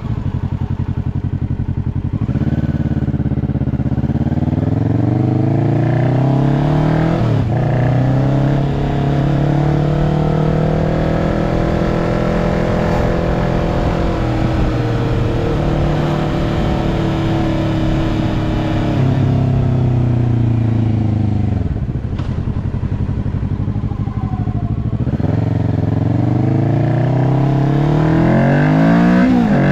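Kawasaki Ninja 650's parallel-twin engine running through an aftermarket slip-on muffler and link pipe while the bike is ridden. The engine pitch climbs through the gears with short breaks at the shifts, holds a long steady pull, drops off, then climbs hard again near the end.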